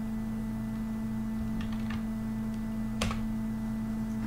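A few keystrokes on a computer keyboard, a handful of light taps followed by one sharper key press about three seconds in, over a steady electrical hum.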